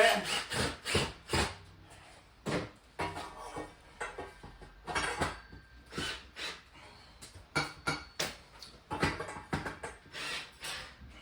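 Irregular clicks, knocks and clinks, a fraction of a second to a second apart, from tools and screws being handled while a shower grab rail is screwed to the wall.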